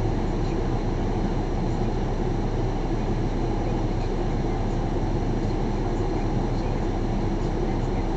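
Steady, unchanging hum and rush of a stationary car heard from inside the cabin, its engine idling.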